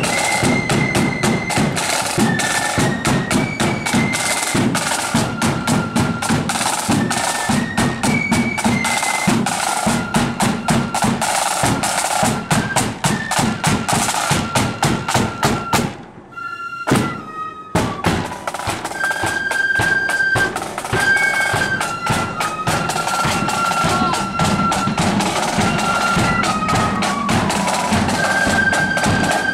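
Marching flute band playing a tune on the march: high flutes carry a stepping melody over a steady beat of bass drum and snare drums. The drums break off for about a second a little past the middle, then the band plays on.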